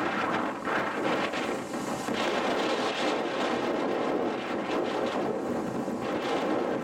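Steady rushing noise of rough surf breaking on the rocks of a storm-damaged seawall.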